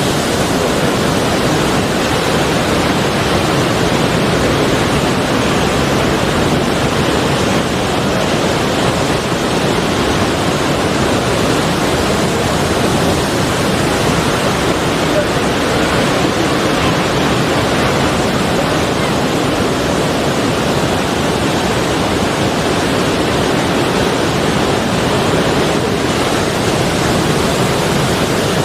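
Sea surf making a steady rushing noise, even in level, with no separate wave breaks standing out.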